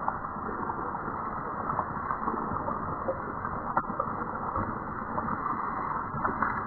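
Tofu deep-frying in hot oil: a dense, steady sizzle and crackle of bubbling oil, with one sharper pop a little before four seconds in.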